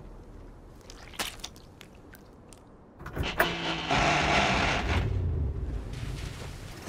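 A cartoon vehicle's engine starting up and revving hard about three seconds in, after a quieter stretch with a single knock about a second in.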